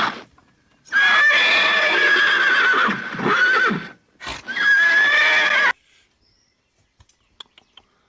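Horse whinnying: one long wavering whinny of about three seconds, then a shorter whinny that cuts off suddenly.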